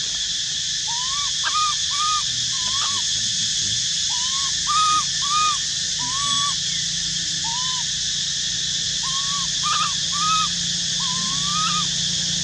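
Infant macaque cooing: about a dozen short, clear calls that rise and fall, given at irregular intervals, over a steady high-pitched drone.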